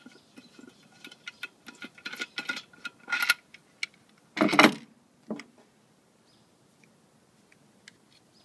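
Metal clinks and scraping as a machined aluminium tapping fixture plate is lifted off an engine block's deck. About four and a half seconds in it is set down with a loud clunk, followed by a lighter knock.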